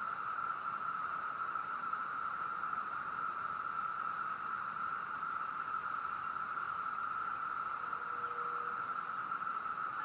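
Chorus of Brood II periodical cicadas massed in the trees: a steady, unbroken drone, sort of like a car alarm.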